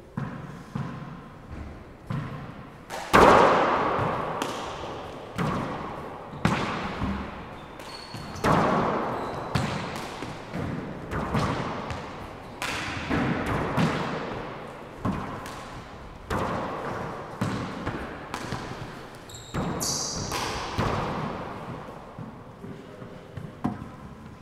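Four-wall handball rally: a rubber ball struck by gloved hands and smacking off the walls and floor about once a second, each hit ringing on in the enclosed court's echo. The loudest hit comes about three seconds in.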